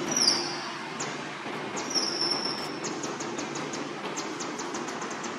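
Steady outdoor background noise with a rapid high ticking, about four to five ticks a second. Two short high-pitched whistling calls come at the start and about two seconds in.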